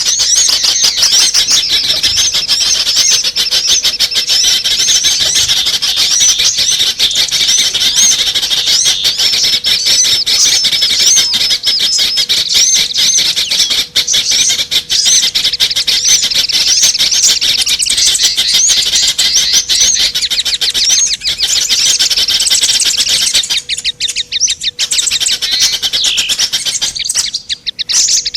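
Dense, continuous chorus of small songbirds chirping and trilling rapidly at a high pitch. It is a mix of many small-bird calls used as a lure to draw small birds in. The chorus thins briefly twice near the end.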